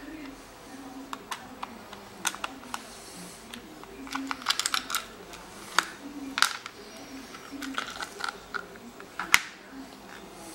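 Plastic control-unit housing and circuit boards of a Milky FJ 15 mini pasteurizer being handled and pulled apart by hand: scattered sharp clicks and taps, bunched together about halfway through, with the loudest single click near the end.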